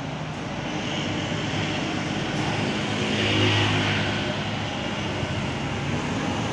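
Roadside traffic: a bus's engine fading as it drives off, then a motor scooter passing close, loudest about three and a half seconds in.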